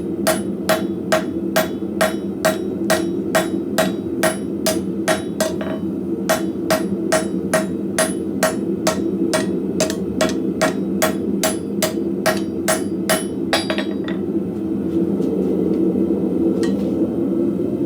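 Hand hammer striking hot coil-spring steel on an anvil at a steady pace of about two blows a second, as the sixteen-sided bar is worked down into a round taper. The hammering breaks briefly about five seconds in and stops about fourteen seconds in. A steady low rumble continues underneath.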